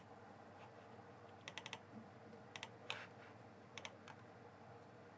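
Faint computer mouse clicks, several in quick pairs like double-clicks, over a low steady hum.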